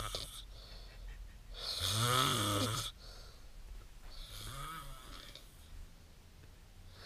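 A person asleep in a bunk bed snoring, one snore about every two and a half seconds. The loudest and longest snore comes about two seconds in, a fainter one about halfway through.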